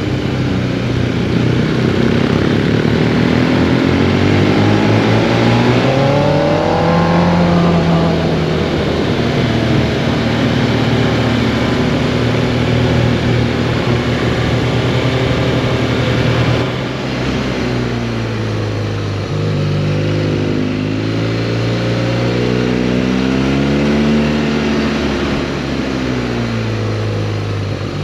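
Motorcycle engine running on the road, its pitch climbing and falling again and again as the rider accelerates and eases off. There is a steady rush of noise underneath, and the sound changes abruptly a little past halfway through.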